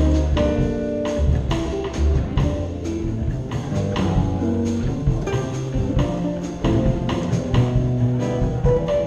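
Jazz trio playing live: a hollow-body archtop electric guitar picks the tune over walking-style upright double bass notes and a drum kit keeping steady time.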